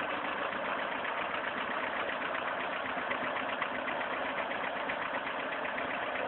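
VAZ-2109 (Lada Samara) four-cylinder petrol engine idling steadily with a fast, even knocking running through it: the engine knock the owner is showing.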